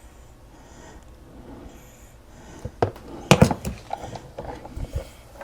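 Kitchen items being handled: a couple of sharp knocks about three seconds in, followed by lighter clicks and clatter.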